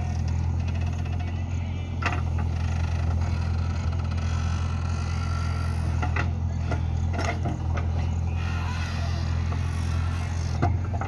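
JCB backhoe loader's diesel engine running steadily under work, with several sharp knocks and clanks now and then.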